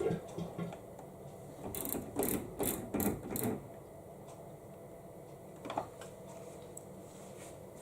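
Samsung Ecobubble washing machine giving a low steady hum, with a quick run of about five sharp mechanical clicks about two seconds in and a single click near the end.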